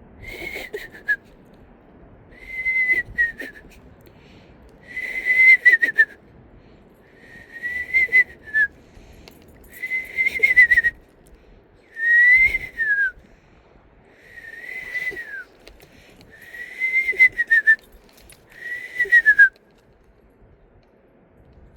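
A man whistling an imitation of a screech owl's call: nine separate notes, each about a second long, holding level and then falling in pitch at the end, repeated every two seconds or so.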